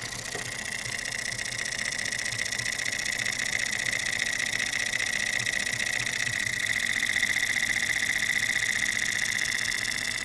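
Toy steam engine running at full speed on compressed air from an aquarium air pump. Its rapid exhaust puffs blend into a steady high-pitched buzzing hiss, which grows louder toward the middle and eases off near the end.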